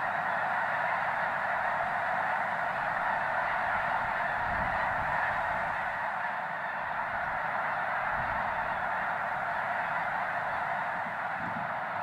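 A huge flock of snow geese calling together: a dense, unbroken din of overlapping honks and yelps.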